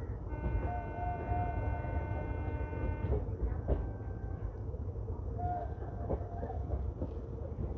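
Indian Railways train running slowly with a steady low rumble, its horn sounding once for about three seconds near the start, and a few sharp knocks from the wheels and couplings.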